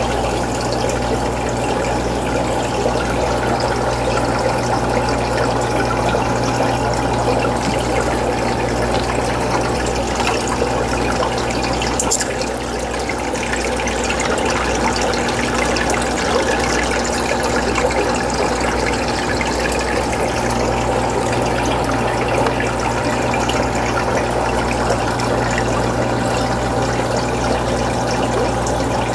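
Aquarium pump and filter equipment running: a steady electric hum with water moving. There is one brief click about twelve seconds in.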